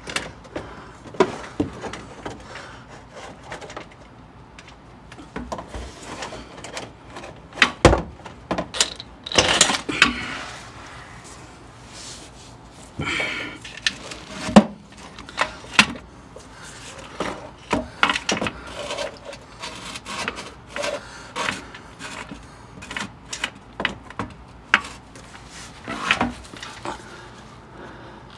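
Irregular metallic clicks, knocks and scrapes of hand tools working at a bellhousing bolt between the engine and transmission from under a Jeep, mixed with the shuffling of someone lying underneath. A few sharper knocks stand out, the loudest about fifteen seconds in.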